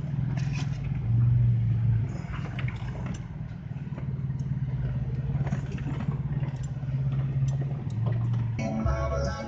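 Jeep engine running low and steady while crawling a rocky trail, rising briefly about a second in and again near the end, with scattered clicks and rattles. Music comes in just before the end.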